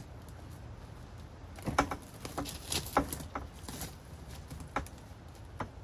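A string of irregular light metallic knocks and clicks as the tube handle of a push salt spreader is set into the welded steel clips of an ATV mount.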